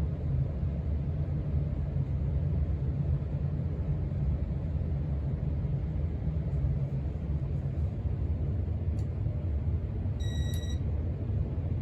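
Casablanca Four Seasons ceiling fan running on high speed, its blades pushing a steady low rush of air across the microphone. A short electronic beep sounds about ten seconds in.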